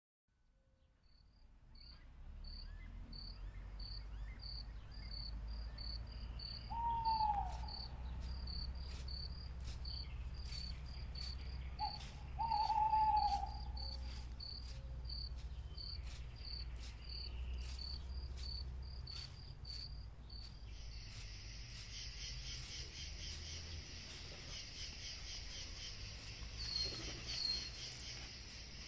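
Woodland ambience fading in: an insect chirping at an even pulse of about two chirps a second, joined about two-thirds of the way through by a denser, higher insect chorus. A bird calls twice, falling in pitch, and these calls are the loudest sounds, over a low steady rumble.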